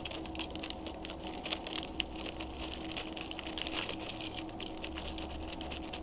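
Small fruit-flavoured corn cereal loops being poured from a bag into a bowl: an irregular patter of many small clicks as the pieces land.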